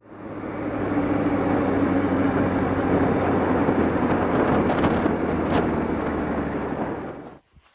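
Motorcycle engine running under way with a steady note, mixed with heavy wind noise on the microphone; it cuts off suddenly near the end.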